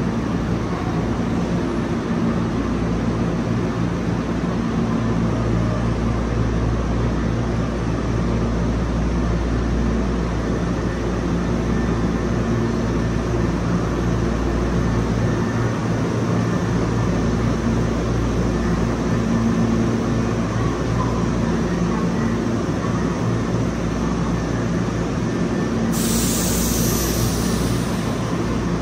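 Hankyu Takarazuka Line electric train running: a steady rumble with a low hum. A high hiss joins near the end.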